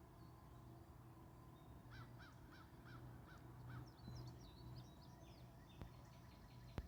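Faint birds calling: a run of six harsh, evenly spaced calls at about three a second, then scattered higher chirps and a quick series of high notes near the end. A low steady hum lies underneath, and a single sharp click comes right at the end.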